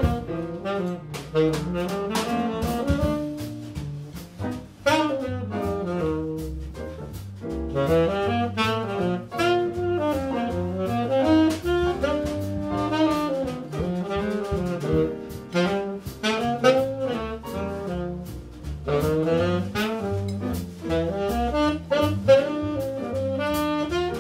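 Small jazz group playing live: a saxophone carries a flowing melodic line over piano, walking double bass and a drum kit with cymbals.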